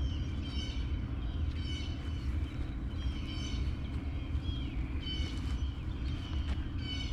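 A bird calling repeatedly, about six short harsh calls spaced roughly a second apart, over a steady low hum.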